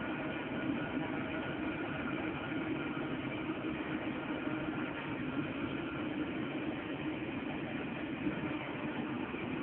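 Tram running along a street, heard from inside the passenger car: a steady running noise with a low hum, and a faint high tone that fades out about halfway through.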